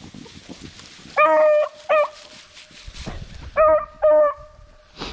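Beagles giving tongue on a rabbit's scent: four short, loud bays in two pairs, the first pair about a second in and the second pair about three and a half seconds in.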